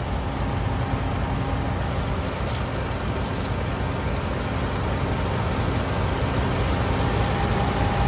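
Heavy diesel engine of a Claas Lexion combine harvester idling steadily, heard from the cab.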